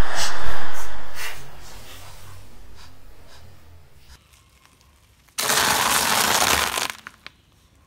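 Car tyre crushing plastic yoghurt cups, the bursting and splatter fading away over a few seconds. After a short silence, a car tyre crunches a yellow crunchy snack for about a second and a half, ending in a few small cracks.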